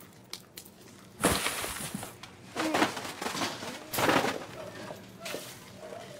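Grocery packages tossed into a wire shopping cart: three noisy crashes about a second and a half apart.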